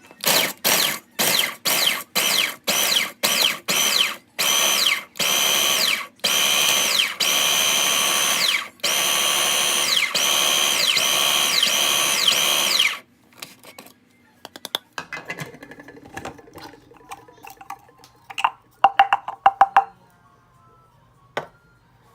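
Blender pulsed again and again, grinding Cheetos into crumbs. It starts with short bursts about two a second, then runs longer from about four seconds in, and each burst ends in a falling whine as the motor spins down. It stops about thirteen seconds in, followed by faint clicks and knocks.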